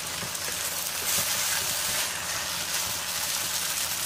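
Spaghetti sizzling in a hot pot on a gas flame while it is tossed and stirred with a wooden spatula: a steady hiss with a couple of louder swells, about a second in and again after two seconds.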